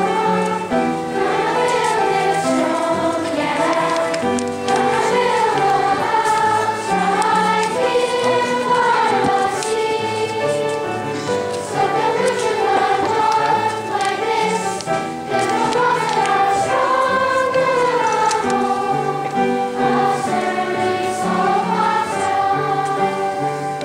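A choir singing a melody in unison over instrumental accompaniment with a moving bass line.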